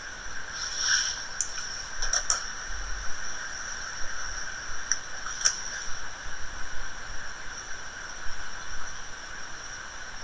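Steady high hiss of the recording background, with a few sharp clicks: one about a second and a half in, a quick pair just after two seconds, and another about five and a half seconds in.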